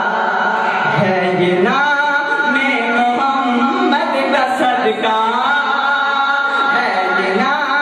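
Male voice singing a naat in long, drawn-out melodic phrases over a steady low drone.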